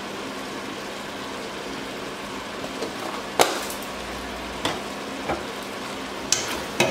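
A stainless steel pot of chicken and vegetables simmering with a steady low hiss. From about halfway through, a few sharp metallic knocks sound against the pot, and near the end a metal spoon starts stirring.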